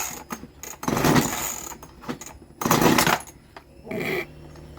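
Homelite chainsaw being pull-started with the choke off: about three separate pulls of the recoil starter cord, each a short burst of the two-stroke engine cranking over without catching.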